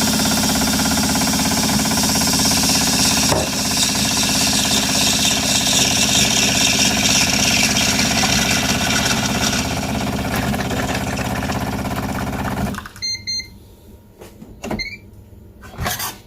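Jura Impressa F8 bean-to-cup coffee machine running through its brewing cycle with a loud, steady mechanical buzz and hum. It stops abruptly about thirteen seconds in, followed by a few short clicks.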